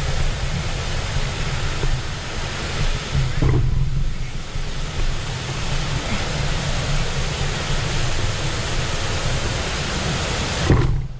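Steady rush of fast-moving river water, with wind buffeting the microphone. It cuts off abruptly near the end.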